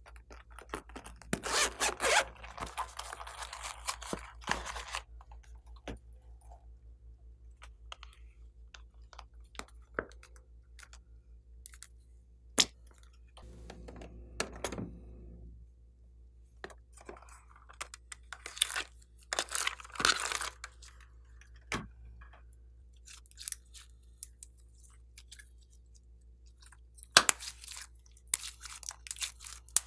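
Hand-made sounds of slime play: a zippered pouch rustled and handled for a few seconds at the start, a piping bag squeezed out with a soft squelch about halfway through, and near the end slime squeezed and kneaded by hand with crackly clicks and squishes.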